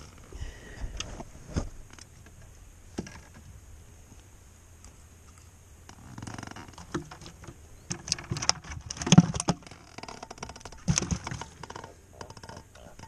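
Handling noise from unhooking a small catfish with fishing pliers: scattered clicks, knocks and rattles, a few near the start and a busier, louder run of them in the second half.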